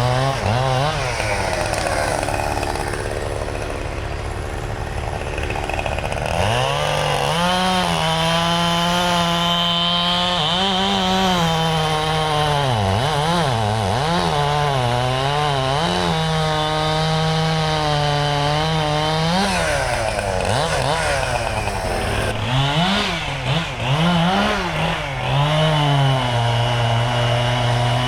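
Chainsaw running hard while felling or bucking trees. The engine holds high revs for stretches and drops back and picks up again several times.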